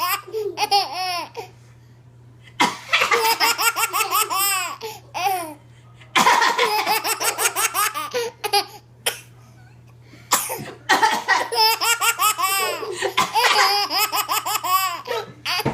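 A 7-month-old baby laughing hard in four bouts of squealing belly laughs, the longest near the end, each set off by an adult's short sharp coughs in the pauses between them.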